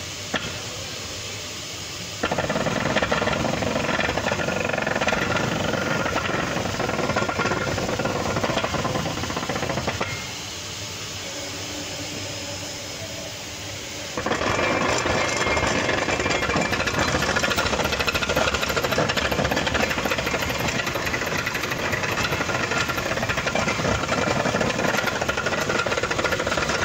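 Rear drivetrain of a 2010 Lincoln MKX running, heard from underneath at the rear differential: a loud, steady mechanical rattle. It grows louder about two seconds in, eases back around ten seconds, and comes back louder about four seconds later. This is the rear differential noise that the differential is being replaced for.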